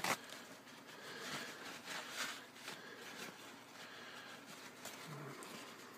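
Faint rustling and rubbing of a paper towel wiping small metal vape-tank parts dry, with a few soft scuffs.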